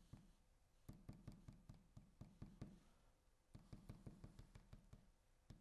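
Faint, quick taps of a glue bottle's tip dabbing small dots of glue onto die-cut cardstock on a cutting mat, in two runs of several taps each.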